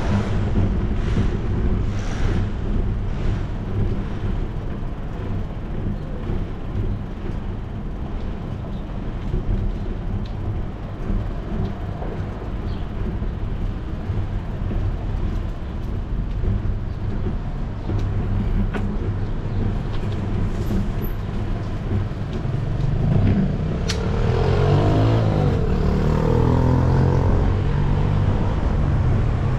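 Steady low rumble of a bicycle rolling over pavement, with wind on a bike-mounted camera's microphone and street traffic around it. Near the end a motor vehicle's engine grows louder close by, its pitch shifting.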